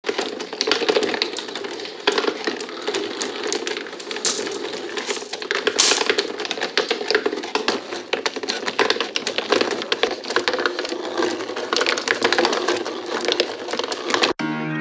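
Hand-cranked cardboard escalator marble run in motion: a dense, steady clatter of the cardboard step mechanism with glass marbles clicking and rattling as they ride up and roll down the cardboard track. Near the end it gives way abruptly to piano music.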